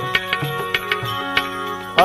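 Instrumental interlude of a Gujarati devotional bhajan: tabla strokes in a steady rhythm over held accompanying tones.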